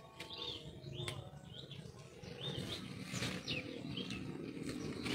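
Small birds chirping: a string of short, high chirps coming every half second or so, over a low steady background rumble.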